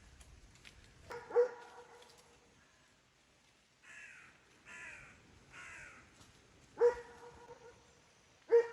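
A dog barks three times, with three short calls from a bird, each falling in pitch, between the barks.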